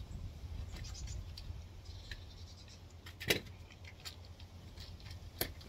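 Small plastic and metal clicks and rattles of a Hornby Class 47 model locomotive chassis being handled and worked apart by hand, with a sharp click about three seconds in and another near the end, over a steady low rumble.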